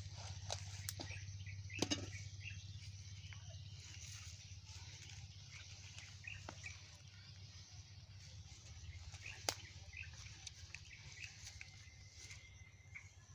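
Quiet rural outdoor background: faint scattered chirps over a steady low hum, light rustling of banana leaves as they are smoothed on the grass, and a few sharp clicks, the loudest about two seconds in and another near ten seconds.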